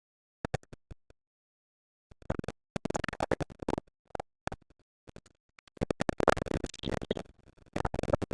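Handling noise from the cordless drill's plastic case and packaging: a few sharp clicks, then bouts of scratchy rustling and knocking as the drill and its bit packet are handled.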